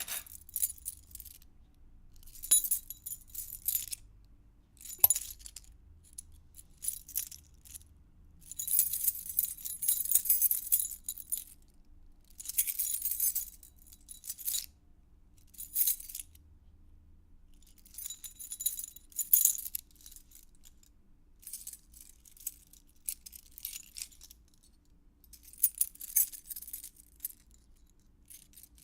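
A bunch of metal keys jangling in a dozen or so separate shakes and handlings, some brief clinks, others rattling for a second or two, with short pauses between.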